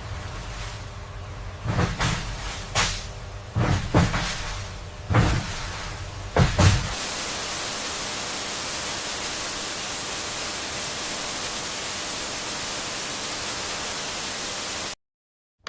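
About six knocks or clunks, one every second or so, over a low steady hum. Then a steady even hiss for about eight seconds that cuts off abruptly.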